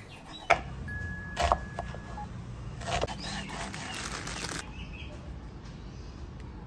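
Chef's knife chopping on a wooden cutting board, a couple of sharp knocks, then a plastic bag rustling and crinkling for about a second and a half.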